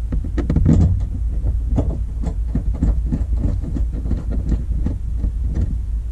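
Irregular light clicks, knocks and rattles of interior parts being handled and fitted back into place in the rear cab of a Toyota Tacoma, over a steady low hum.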